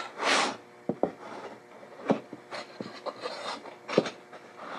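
MDF jig parts being handled and fitted together on a wooden workbench: a short scraping rub, then several light wooden knocks and taps as the glued arm is set into the base's grooves.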